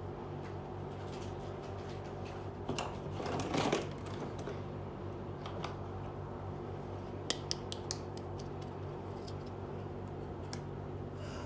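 Small plastic toy pieces being handled and set down on a cloth: a brief rustle about three seconds in, then a few light clicks, over a steady low hum.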